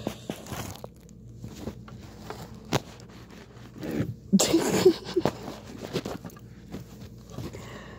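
Close handling noise: clothing and fabric rustling against the phone's microphone with a few light knocks, and a louder rustling burst about halfway through as a hand reaches across the rug.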